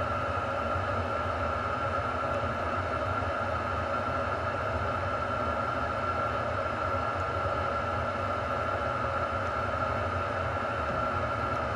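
Steady mechanical hum with a constant high whine over a low rumble.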